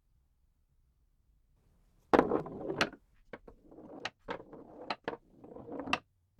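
A run of sharp clicks and knocks with scraping in between, starting about two seconds in and stopping just before the end, like objects being handled and set down.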